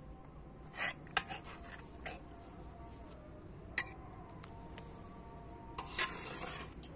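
A metal ladle clinking against a black metal pan and a ceramic bowl as stew is ladled out. A few sharp clinks come about a second in and again near four seconds, some with a short metallic ring. Around six seconds there is a clink and a brief scrape.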